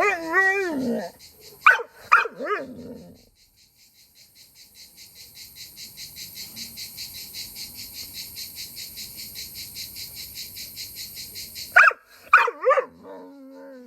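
A dog whining and yelping, with short sharp yips about two seconds in and again near the end. Between them a cricket chirps in a fast, even rhythm.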